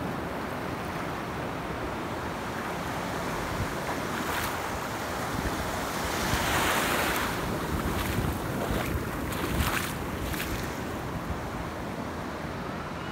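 Small waves washing in over a shallow sandy shoreline, swelling to a louder wash about six to seven seconds in, with a few short splashes and wind rumbling on the microphone.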